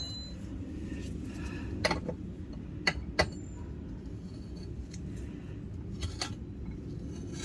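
A handful of short sharp clicks and small knocks, as of small objects being handled, over a steady low hum.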